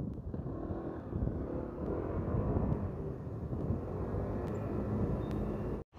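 City road traffic: vehicle engines and tyres running and passing on a busy street, with a steady low rumble. The sound drops out briefly near the end.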